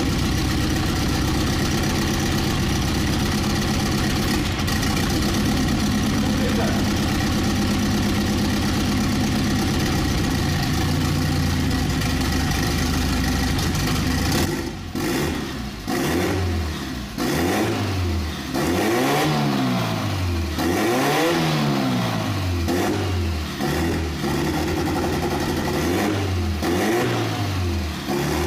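Nissan CA18DET turbocharged twin-cam four-cylinder idling steadily. About halfway through it is blipped by hand at the throttle, rising and falling in quick revs about once a second.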